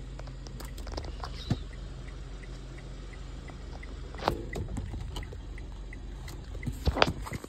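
Hazard-light flasher of a 2013 Kia Sorento ticking steadily, about three ticks a second, over the low hum of the engine idling. A couple of handling knocks stand out, near the middle and, loudest, near the end.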